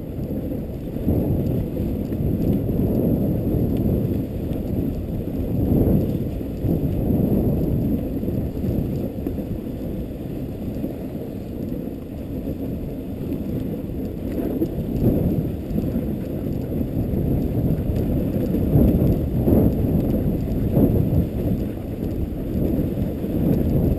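Steady low rumble and rush of a dog sled's runners gliding over packed snow, picked up by a camera mounted on the sled, swelling now and then over bumps.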